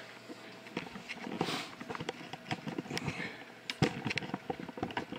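Scattered light knocks and clicks of footsteps and handling while walking across a small workshop, with one sharper knock about four seconds in. A faint steady hum runs underneath.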